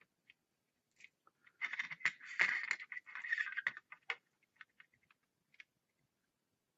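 Small metal hand tools being handled on a workbench: a run of light metallic clinking and scraping for about two and a half seconds, with scattered small clicks before and after.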